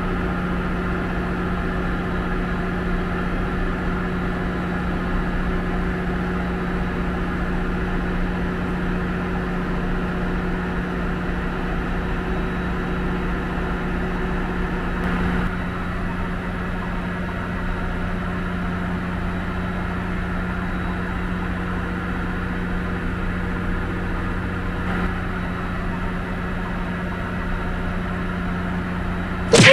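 Ferry's engine-room machinery droning steadily, a constant low hum with a steady pitch that never changes. It ends with a brief loud falling sweep, then cuts off.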